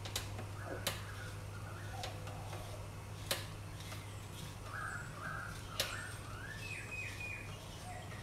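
A few sharp clicks of a kitchen knife tapping against an avocado shell and plate while the flesh is scooped out. Short bird chirps come in the background, mostly in the second half, over a steady low hum.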